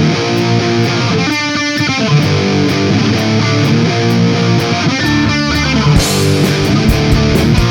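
Background rock music led by electric guitar, with a steady drum beat that gets fuller about six seconds in.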